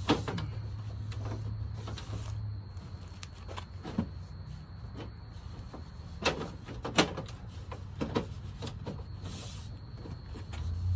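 Plastic front grille with broken top mounting tabs being pressed and knocked against the car's front, giving several sharp clicks and knocks, the loudest right at the start and about seven seconds in.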